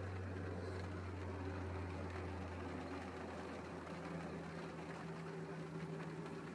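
Steady low mechanical hum with a few steady tones above it, one more tone joining about four seconds in.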